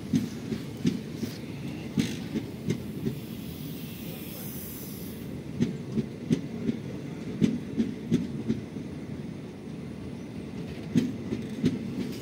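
Indian Railways express passenger coaches rolling past while departing. Their wheels clickety-clack over the rail joints in quick groups of knocks, over a steady low rumble.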